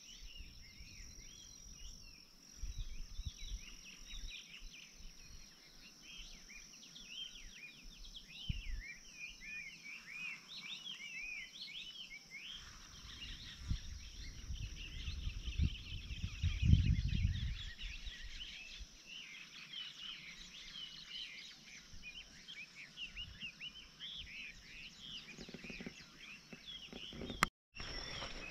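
Many small birds chirping and twittering at once over a steady high insect drone. A deep rumble on the microphone swells and is loudest about halfway through.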